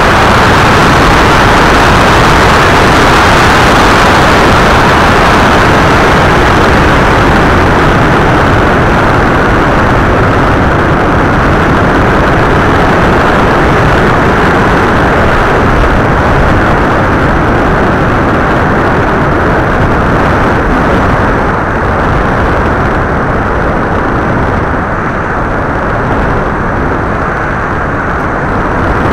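Loud, steady rush of wind and propeller noise picked up by the onboard camera microphone of an FPV model aircraft in flight, easing slightly near the end.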